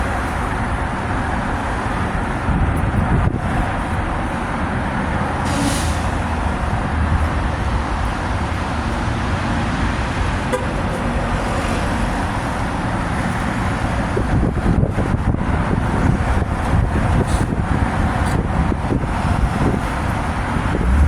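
Steady vehicle noise: a continuous low rumble with hiss, without a break.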